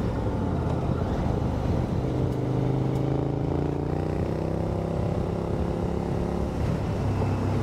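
KTM 1090 Adventure R's V-twin engine running steadily as the bike rides along a gravel road, over road and wind noise. The engine note rises a little about two seconds in, holds, then eases off near the end.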